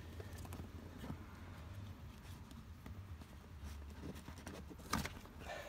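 Faint rustling and light tapping of a seatbelt buckle and its webbing being handled and pushed down into a leather rear seat, with a single sharp click about five seconds in.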